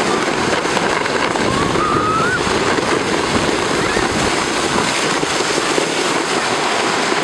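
Steady, loud scraping rush of a sled sliding fast down rutted, packed snow, with wind buffeting the microphone.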